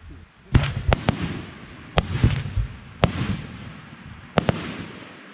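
Fireworks bursting overhead: a string of about six sharp bangs, each trailed by a fading crackling rush, with the last one about four and a half seconds in.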